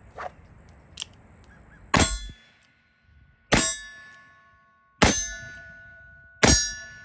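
A Pietta 1851 Colt Navy .44 cap-and-ball revolver firing black powder, four shots about a second and a half apart. Each shot is followed by the ringing clang of a hit steel target.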